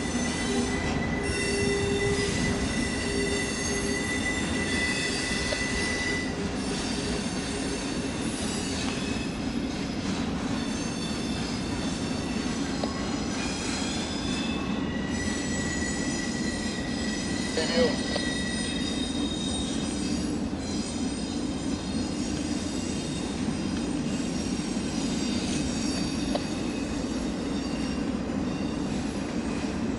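Intermodal freight cars rolling across a stone arch viaduct: a steady rumble of wheels on rail with high-pitched wheel squeal, several squealing tones that fade in and out, and one brief sharper squeal a little past the middle.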